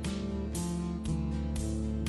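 Background music of plucked guitar notes over sustained low tones, a new note about every half second.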